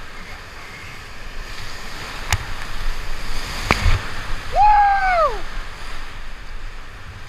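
Rushing whitewater of a big, fast rapid heard close up from the canoe, with water splashing over the boat and camera. Two sharp knocks come a second and a half apart, and about halfway through a short whoop rises and falls.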